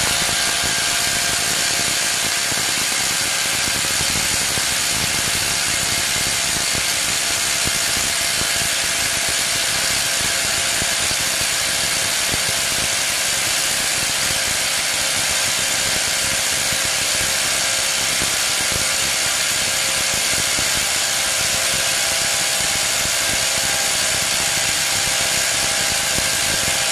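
18 V brushless cordless impact wrenches (Bosch GDX 18V-1800 and Dongcheng DCPB02-18) hammering without pause while tightening bolts for 30 seconds. The bolts are already seated, so the anvils keep impacting the whole time. It is a rapid, even hammering with a steady whine over it.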